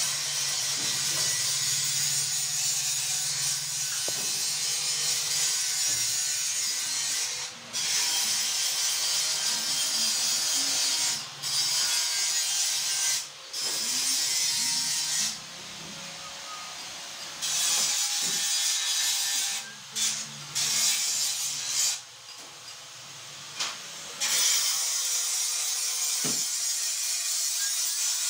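Electric-motor-driven areca nut crusher running: a steady rasping, rushing machine noise over a faint constant hum. The level dips briefly several times.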